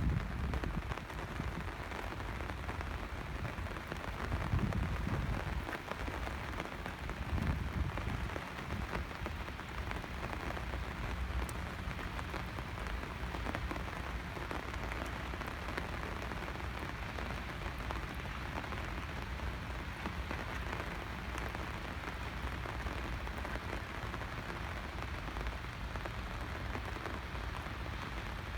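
Steady rain falling, an even hiss of drops throughout, with a few brief low rumbles in the first eight seconds.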